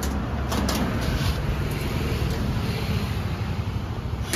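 Steady road traffic noise, a low rumble, with a few faint knocks about half a second in.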